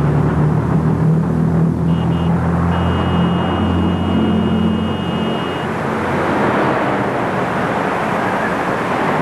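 Road traffic with a heavy vehicle engine running steadily. A high-pitched squeal sounds briefly about two seconds in and again from about three to five and a half seconds.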